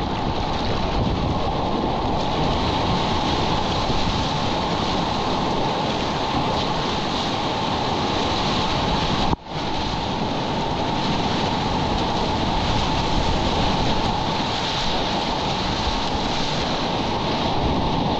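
Whitewater rapids rushing steadily, with wind buffeting the microphone; the sound cuts out for a split second about halfway through.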